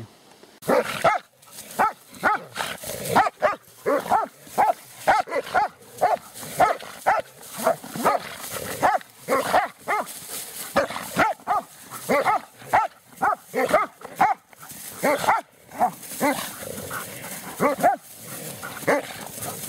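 Dogs barking over and over in rough play, about two or three short barks a second.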